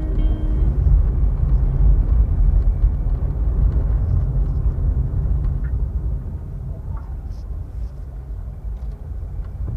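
Sewing machine running as it stitches a fabric piece, a steady low rumble that eases off after about six seconds.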